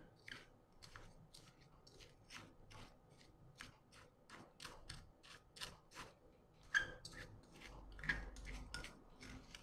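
Spoon stirring dry instant coffee and icing sugar in a small ceramic bowl: a run of faint, light scrapes and clinks of the spoon against the bowl, about three a second.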